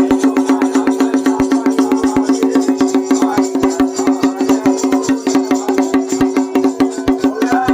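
Music: a fast, even percussion beat over a steady held drone, with no singing.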